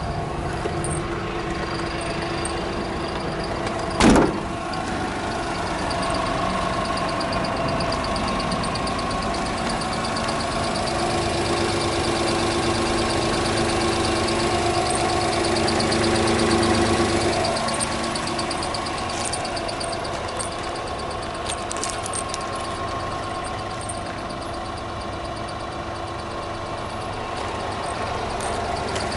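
Honda Acty mini truck's small three-cylinder engine idling steadily, growing somewhat louder toward the middle and then easing off. A single sharp thump about four seconds in.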